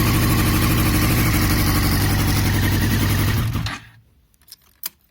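2002 Yamaha YZF-R6's inline-four engine running steadily with a misfire whose cause the owner has not found, then shutting off suddenly about three and a half seconds in. A few light clicks follow.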